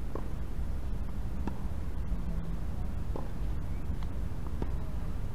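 Steady low rumble with about five faint, sharp knocks spaced unevenly, from tennis balls being struck and bouncing on the court.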